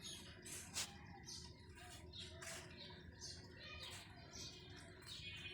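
Faint bird chirps, short falling high notes repeated two or three times a second.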